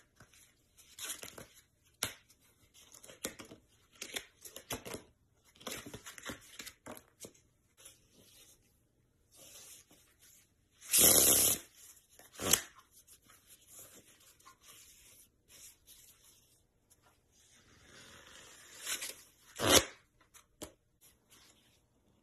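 A deck of playing cards handled in flourishes: scattered soft clicks and rustles as the cards are cut, pressed and spread. There is a louder riffle of cards about eleven seconds in, a sharp card snap about a second later, and a louder riffle and snap near the end.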